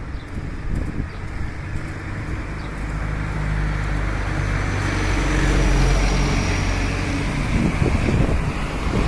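Road traffic: a motor vehicle's engine hum with road noise, building to its loudest a little past the middle and easing off near the end.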